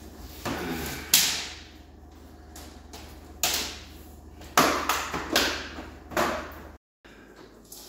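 Swisstrax interlocking polypropylene garage floor tiles being laid and snapped together by hand: an irregular series of sharp plastic clacks and knocks. The sound drops out completely for a moment near the end.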